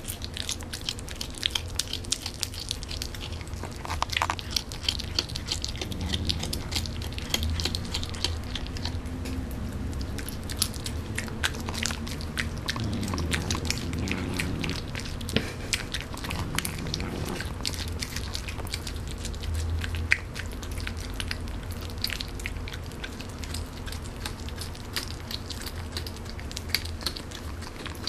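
Sphynx cat chewing and biting meat: a fast run of wet smacks and crunches, with low humming 'nom nom' sounds from the cat in the middle stretch.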